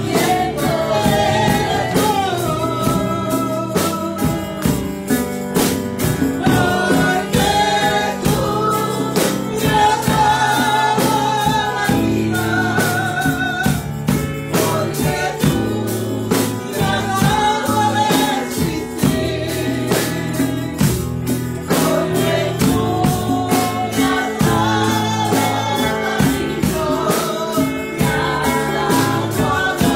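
Live gospel praise music: a woman singing a melody into a microphone over electric bass guitar, with a steady percussive beat and tambourine.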